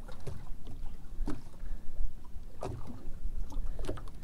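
Water slapping against the hull of a small fishing boat, with three sharper slaps about a second and a half apart over a steady low rumble.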